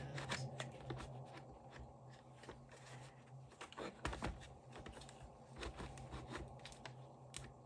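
Faint hard-plastic clicks, taps and scrapes from a small Klein ModBox organizer being pushed against the clip on the back of a larger ModBox, failing to latch. The loudest knock comes about four seconds in, over a faint steady low hum.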